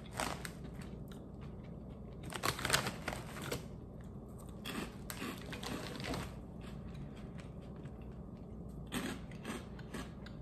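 A man biting into and chewing crunchy twisted, ridged potato chips (Ruffles Ridge Twists), in bursts of crunching that are loudest two to three seconds in, with quieter chewing between.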